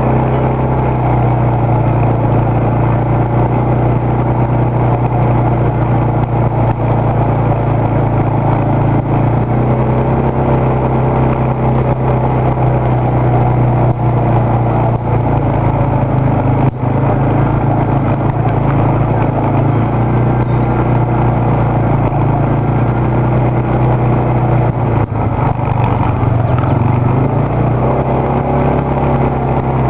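Quad bike (ATV) engine running steadily under way, its note dipping and rising slightly a few times with the throttle.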